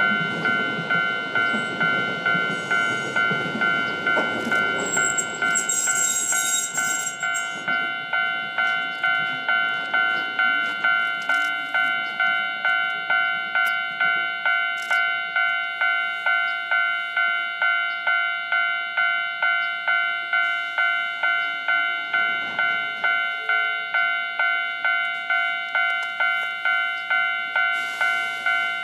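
Level-crossing warning bell ringing in an even, repeating ding about one and a half times a second, running on throughout. Under it in the first few seconds the Hankai Mo161 tram rumbles in on the rails, with a short high brake squeal about six seconds in as it stops.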